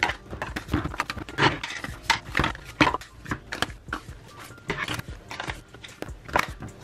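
Plastic lids being put onto plastic slime tubs and set down on a stone countertop: irregular clicks and knocks of plastic, several a second.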